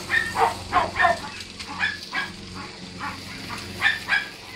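Dogs barking in shelter kennels: short, irregular barks, often in quick pairs, loudest in the first second and again near the end.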